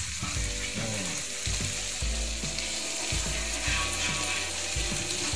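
Chopped pork sisig sizzling on a hot sizzling plate, with a spoon scraping and knocking as more is piled on from a steel bowl.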